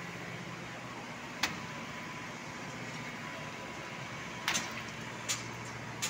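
Steady machinery engine hum on a construction site, broken by a sharp knock about a second and a half in and two more near the end.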